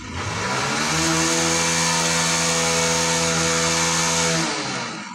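Conch shell (shankh) blown in one long, steady, breathy note that swells in at the start and tails off near the end.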